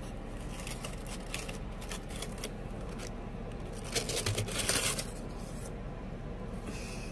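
Honeycomb kraft-paper packing rustling and crinkling as a hand pulls it out of a shipping box, in scattered short bursts that are loudest about four to five seconds in.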